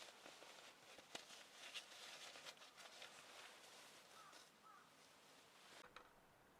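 Faint rustling and crackling with scattered sharp clicks, which stop near the end, and two short squeaky chirps about four seconds in.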